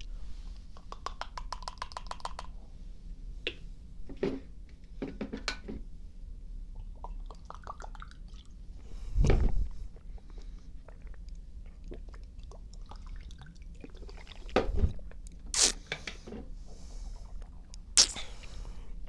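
Someone taking a dose of creatine: a quick run of small clicks in the first couple of seconds, then scattered knocks and clicks with mouth and liquid sounds.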